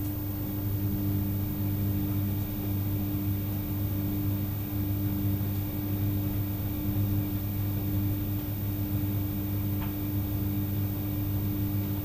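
Steady low hum of a running machine or appliance, with a faint click about ten seconds in.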